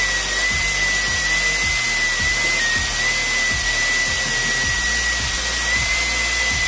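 Angle grinder running under load, its disc grinding down the face of a steel spiral bevel gear held in a vise: a steady high whine over a harsh hiss.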